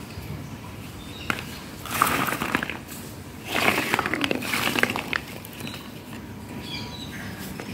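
Dry copra halves clattering and scraping against one another as they are handled, in a short burst about two seconds in and a longer one from about three and a half to five seconds.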